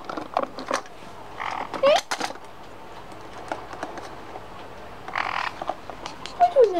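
Black-headed caique giving two short, harsh squawks, about a second and a half in and again about five seconds in, with scattered small clicks and rustles as it rummages among objects in a wooden drawer.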